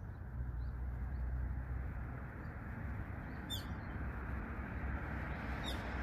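Bird calls: a few faint short chirps, then two sharp, quick high calls that sweep upward in pitch, about three and a half seconds in and near the end, over a steady low background rumble.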